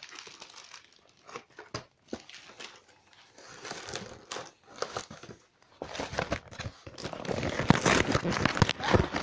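Cardboard craft box and its packaging being opened by hand: crinkling and tearing, scattered at first, then denser and louder over the last few seconds.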